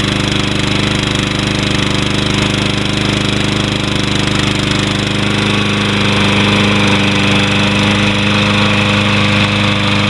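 Honda GCV160 single-cylinder lawn mower engine running steadily at speed, with an even, continuous hum. About six seconds in it gets slightly louder and its tone shifts a little.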